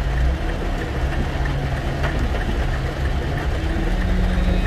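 Heavy rain beating on a car's roof and windshield, heard from inside the cabin as a steady hiss, over the low, steady hum of the car's engine.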